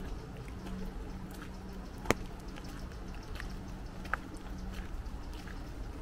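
Rain falling in woodland, with scattered drops tapping on an umbrella. One louder, sharp drop lands about two seconds in, and another about four seconds in.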